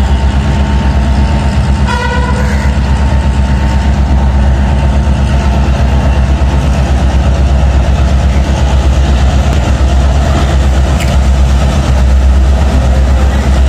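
Diesel locomotive approaching slowly, its engine giving a steady heavy low throb, with a short horn toot about two seconds in.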